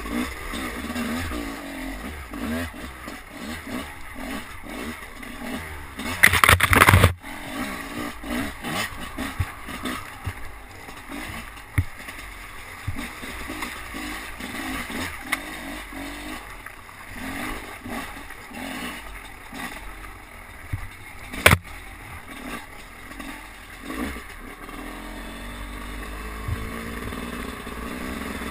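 Enduro dirt bike engine revving up and down in quick bursts as it is ridden over a rough, muddy trail. A loud rushing noise lasting about a second comes about six seconds in, and a single sharp knock about twenty-one seconds in. Near the end the engine settles into a steadier, slowly rising note.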